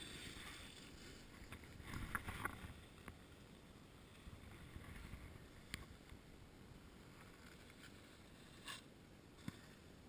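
Faint wind rumble on the action camera's microphone, with a few light knocks and clicks, the loudest patch about two seconds in.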